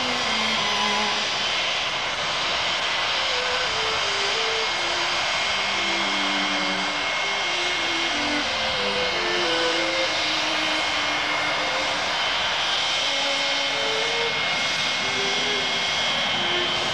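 Boeing 727's three Pratt & Whitney JT8D turbofan engines running at low taxi power, a steady jet rumble with a thin high-pitched whine, as the trijet rolls along the taxiway.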